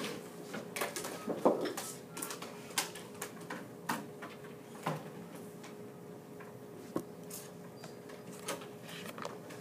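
Scattered light clicks and taps at irregular intervals, a dozen or so, with a louder knock about one and a half seconds in, over a steady faint hum.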